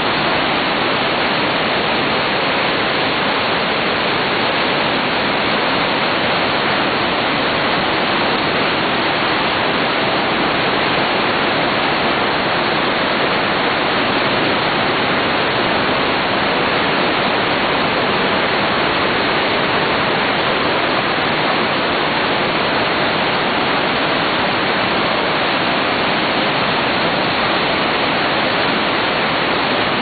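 Glacier-fed waterfall plunging through a narrow rock chasm: a loud, steady rush of falling water that never lets up.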